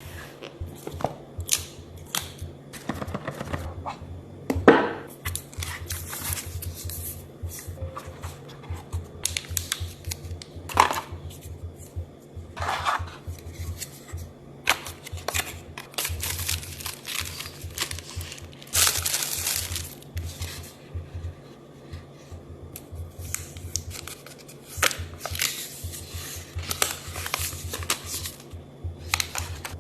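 Unboxing of a smartphone's retail box and packaging: scattered scrapes, rustles and tearing of paper and plastic, with clicks and taps as parts are lifted out and set down, and one sharper knock a few seconds in. A low steady hum runs underneath.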